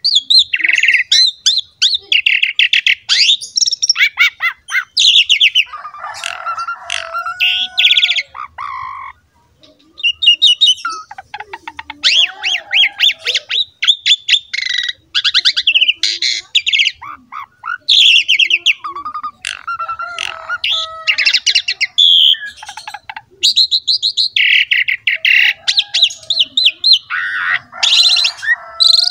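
Asian pied myna (jalak suren) in full, vigorous song: a long, varied string of rapid chattering trills, squawky notes and short gliding whistles, with one brief pause about nine seconds in.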